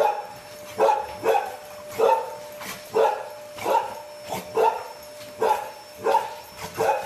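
A dog barking over and over, about a dozen short barks in quick succession, as it snaps at a vacuum cleaner wand.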